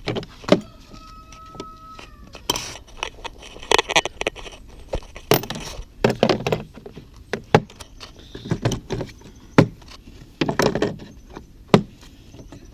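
Metal hand tools clinking and clattering as they are handled and sorted: a string of sharp knocks and rattles, with a brief steady squeak about a second in.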